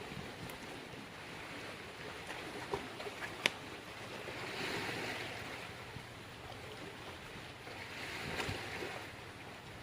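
Water washing in two soft swells, about four and a half and eight seconds in, with a few small clicks and taps around three seconds in.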